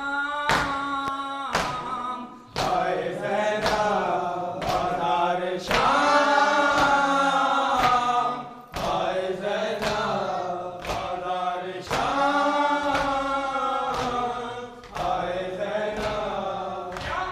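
A group of men chanting a noha (Shia lament) in unison, with rhythmic chest-beating (matam): a sharp slap of hands on chests about once a second under the singing.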